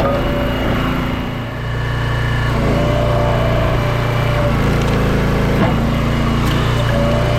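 Small gas engine of a log splitter running steadily, with a high whine that comes in about three seconds in and again near the end as the hydraulics work, and a single click partway through.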